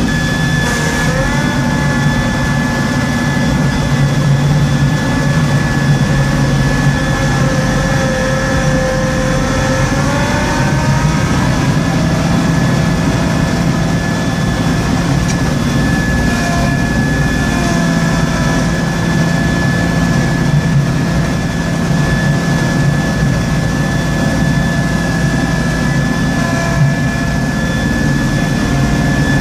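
Small Kubota tractor running under load and driving a front-mounted snow blower, heard from inside the cab. It is a steady drone with a constant high whine, and its pitch rises briefly a couple of times.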